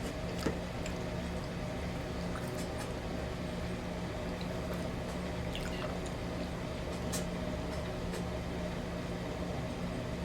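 Faint, wet chewing and mouth sounds of someone eating, a few soft clicks here and there over a steady low hum.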